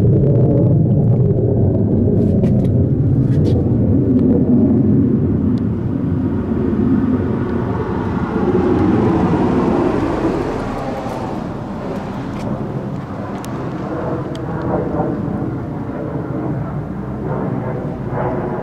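Military aircraft passing overhead: a heavy, continuous low engine rumble that eases off about ten seconds in.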